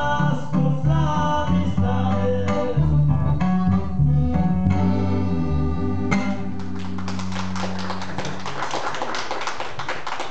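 Amplified band of accordion, electric bass and guitar playing the close of a song, ending on a final strummed chord about six seconds in with the bass note ringing on. Then a small audience claps.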